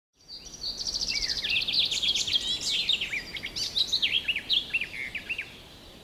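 Songbirds chirping and trilling, with rapid trills and short sweeping notes overlapping one another. The song fades out about half a second before the end.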